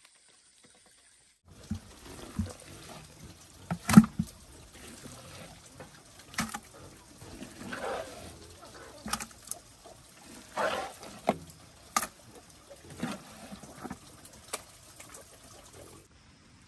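Wet fermented corn mash residue sloshing and splashing, with irregular knocks and clatters, the loudest about four seconds in and again near twelve seconds.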